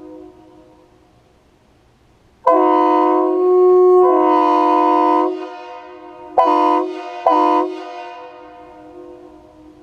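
Hornblasters Outlaw train horn set, fed 120 psi air through a quarter-inch ball valve, blowing a loud chord of several notes. The echo of a blast fades away, then one long blast of about three seconds, then two short blasts about a second apart, each ringing on in an echo that dies away slowly.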